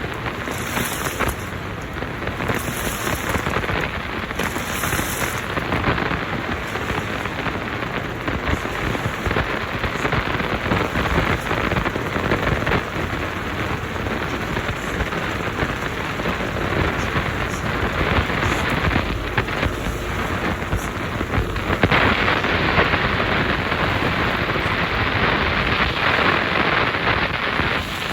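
Midea 13 kg washing machine filling: water pouring and splashing into the drum in a steady rush, which turns brighter and a little louder about 22 seconds in.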